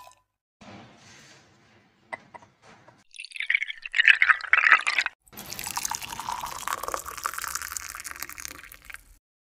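Milk poured over ice cubes in a cut-crystal glass, splashing and trickling from about three seconds in until shortly before the end, with a brief break around five seconds.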